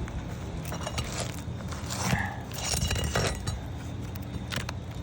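Small scrapes and metallic clicks of a tool working under asphalt shingles to free roofing nails, with a brief squeak about two seconds in.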